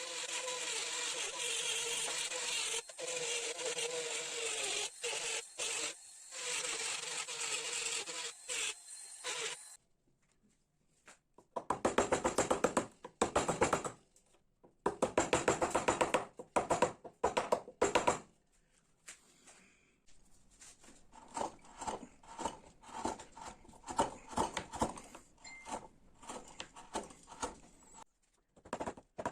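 A tool scraping ash wood: a steady rasping for about ten seconds, a pause, then bursts of rapid, even strokes that fade to fainter scraping near the end.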